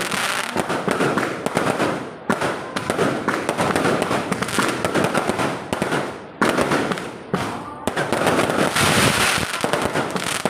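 Fireworks and firecrackers going off in a dense, rapid string of overlapping bangs and crackles, with brief lulls about two seconds in and again around six and seven seconds in.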